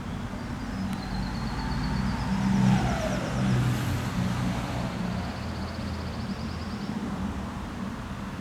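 A road vehicle passing by, its pitch falling as it goes past about three seconds in, over a steady low rumble. A rapid high trill sounds twice.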